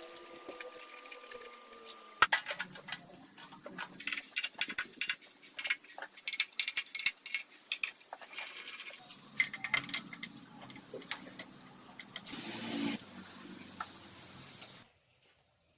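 Quick irregular clinks and clicks of small metal parts and tools being handled. The sound cuts off suddenly near the end.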